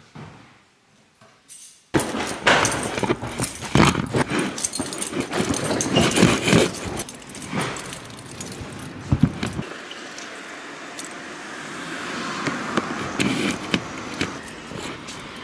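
Near silence for about two seconds, then close-up clattering, knocking and rattling of a plastic storage box and its contents as it is carried along with the camera resting on its lid. From about ten seconds in the knocks thin out into a steadier, quieter street noise.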